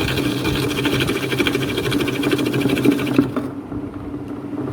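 Meenakshi Cutipie tabletop wet grinder running with its coconut-scraper attachment while a coconut half is grated on it. A rapid rattling scrape over the motor hum stops about three seconds in, and the motor hum goes on.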